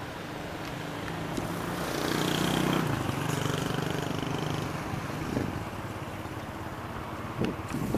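An engine running with a steady drone, swelling to its loudest around two to three seconds in and then easing off.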